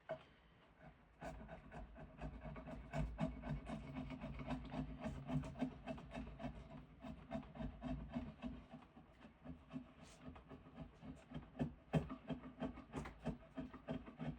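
Hand work on a piece of diamond willow: quick, regular rubbing strokes on the wood, a few a second, as if with a rasp or sandpaper, starting about a second in.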